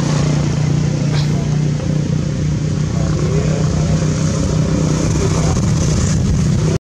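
A steady, low engine drone, as of a motor vehicle running, that cuts off suddenly near the end.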